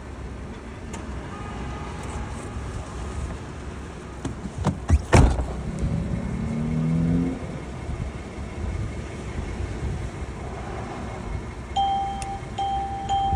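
Car running at idle, heard from inside the cabin, with a couple of sharp knocks about five seconds in and a short rising whine just after. Near the end a run of steady electronic beeps starts.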